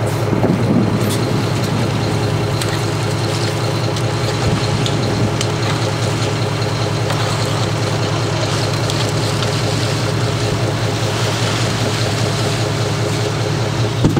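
Fishing boat's engine running steadily underway, with a hiss of wind and water and a few faint clicks.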